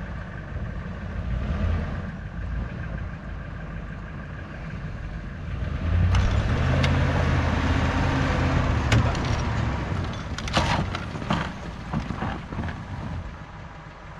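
Pickup truck engine under load, pulling a snow-buried utility trailer free on a chain. The engine gets louder about six seconds in and holds for several seconds, then a run of sharp knocks and rattles comes as the trailer breaks loose and drags.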